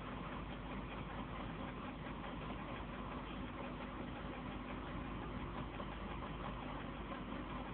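Steady background hiss with a faint, even hum, unchanging throughout.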